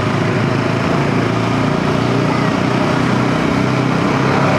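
Motorcycle engine running steadily at riding speed, with wind rushing over the camera microphone.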